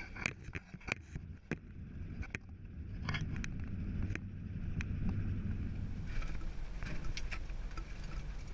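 Inside an old pickup truck's cab driving on a rough dirt track: a steady low engine and road rumble that builds a little partway through, with many sharp clicks and rattles, thickest in the first half.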